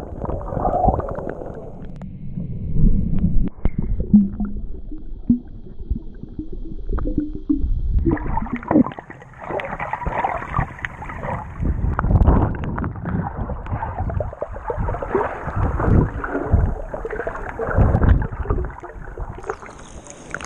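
Water heard from inside a GoPro's waterproof housing underwater: muffled churning and gurgling of bubbles and moving water with dull knocks, growing brighter and busier about eight seconds in.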